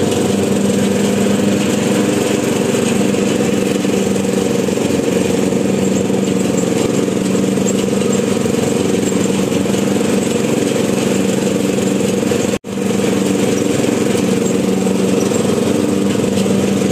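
Ride-on lawn tractor engine running steadily while mowing, heard from the driver's seat. It cuts out for an instant about two-thirds of the way through.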